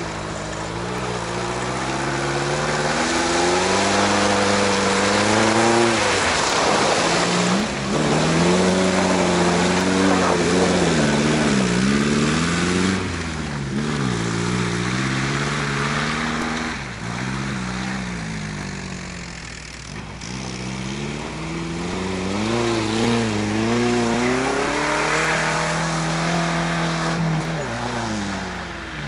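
1984 Datsun/Nissan pickup truck engine revving up and dropping back again and again as it drives through mud, over a steady hiss.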